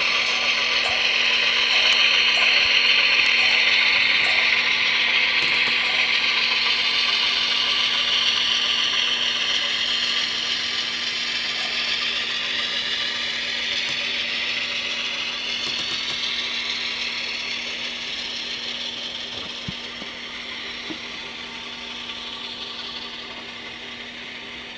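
Model railroad diesel locomotive and its freight cars rolling past on the track: a continuous motor whir and wheel rumble over a steady low hum. Loudest in the first few seconds as the locomotive passes, then fading slowly as the cars go by.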